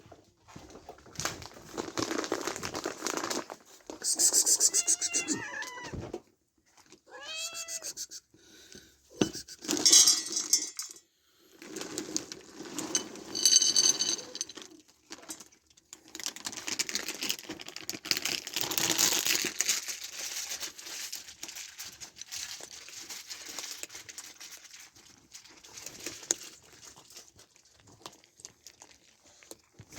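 Cats meowing for food, a few short rising-and-falling meows, over rustling, crinkling and clattering.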